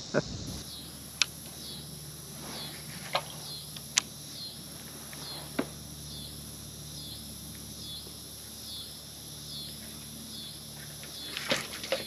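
Insects chirping in a steady high rhythm of about two pulses a second, with a few sharp clicks and a louder rustle near the end.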